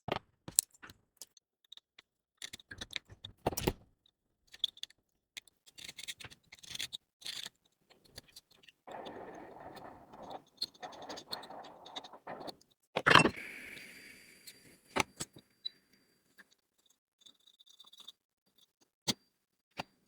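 Small metal repair tools clicking, tapping and scraping on a phone's circuit board and workbench. Partway through there is a few seconds of steady rushing noise, then a sharp knock, the loudest sound here.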